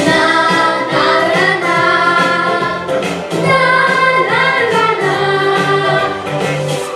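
A song: a solo voice sings long, held notes over a steady instrumental accompaniment, with one sliding note about four and a half seconds in.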